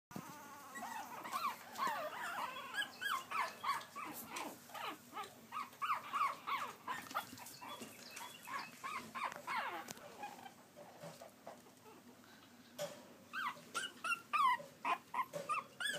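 Several Pekingese puppies whimpering: a rapid string of short, high-pitched cries that eases off for a couple of seconds about two-thirds through, then starts again.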